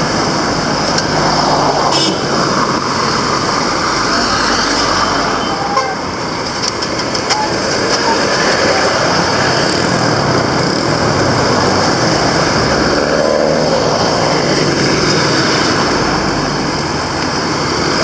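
Steady roadside traffic noise: motor vehicles running and passing on the road.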